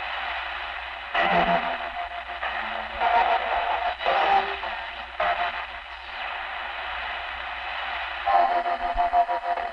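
Shortwave radio reception of a Wellington, New Zealand station's identification signal, which has both a voice and a musical part, coming through heavy static and hum. Louder tones and voice-like bursts rise out of the noise now and then.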